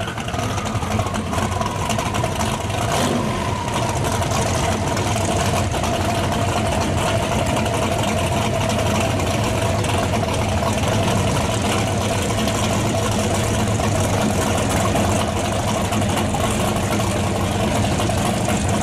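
Chevrolet Bel Air pro street drag car's engine settling from a rev right at the start, then idling loud and steady as the car creeps up to the line after its burnout.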